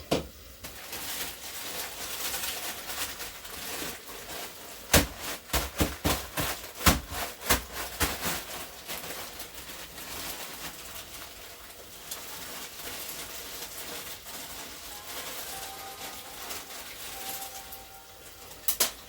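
Kitchen clatter: a quick run of sharp knocks and clicks, like a utensil against a pot, about five to eight seconds in, over a steady hiss.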